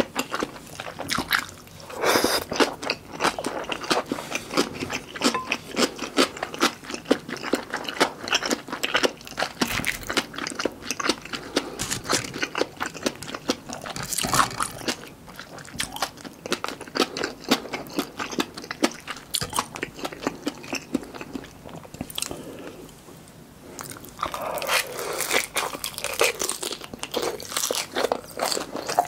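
Close-miked mouth sounds of a person eating: wet chewing of malatang, then crunching bites of guobaorou, fried pork in a crisp starch coating, about halfway through. The sharp crunches and chews come densely, with a short quieter lull near the end.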